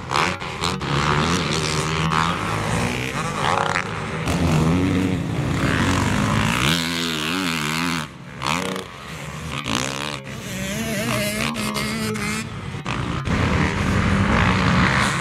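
Motocross dirt bike engine on the track, its revs rising and falling again and again as the throttle is opened and closed, with a few abrupt breaks between passes.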